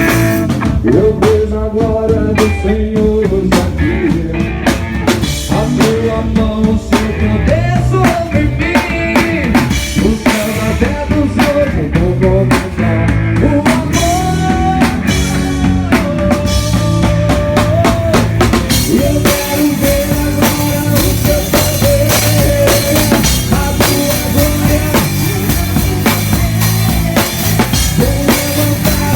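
Live band playing a gospel song, drum kit prominent with snare and bass drum under a bending melodic lead line; about two-thirds of the way through the cymbals fill in with a steady wash.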